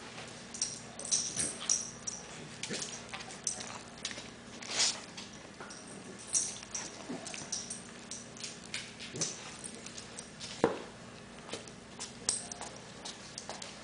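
Beagles at play on a hard floor: many short, irregular scuffs and clicks, with a few brief dog whimpers.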